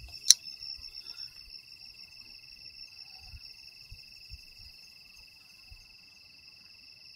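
Crickets trilling steadily, with a single sharp click about a third of a second in.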